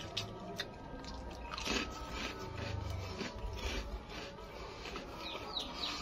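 Close-up eating sounds: a man chewing and smacking his lips on a mouthful of rice, boiled tofu and boiled egg, in short irregular clicks, with fingers scooping rice on a plastic plate.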